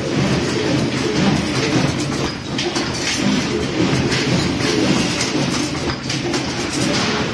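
CNC double-wire rebar stirrup bending machine running, automatically straightening, cutting and bending steel rebar into stirrups, with a steady rattling mechanical clatter.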